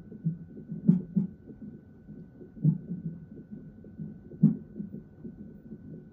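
Fetal heart monitor's speaker playing an unborn baby's fast, even heartbeat, with louder knocks about every two seconds, which the mother takes for the baby hiccuping. A faint steady high tone runs underneath.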